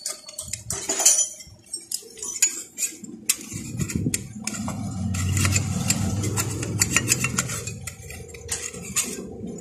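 Light metallic clinks and clatter of metal engine parts and studs handled by hand at a stripped motorcycle engine. A low rumble swells in the background from about three and a half seconds in and fades near the end.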